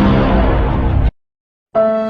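Dark, dramatic music with a heavy low rumble that cuts off abruptly about a second in; after a short silence, a new piece of music with held, steady notes begins near the end.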